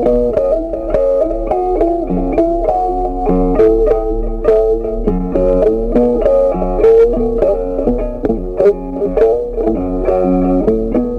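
Instrumental background music played on plucked guitar: a steady run of short picked notes.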